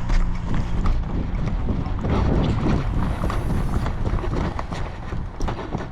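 Irregular footsteps and rustling of someone moving through woodland undergrowth, with a heavy low rumble of wind and handling on the microphone.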